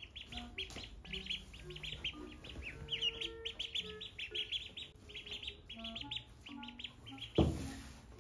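Ducklings peeping: a dense, unbroken run of short, high chirps from several birds at once. Soft background music of held notes sits underneath, and a short rush of noise comes near the end.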